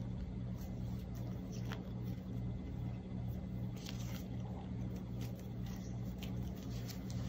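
A steady low hum, with a few faint soft ticks and rustles of sewing thread and satin ribbon being handled as the thread is knotted around the middle of a ribbon bow.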